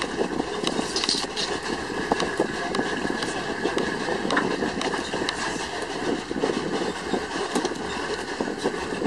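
Vehicle driving over a rough dirt track: a steady rumble of tyres and motion, with frequent small rattles and knocks.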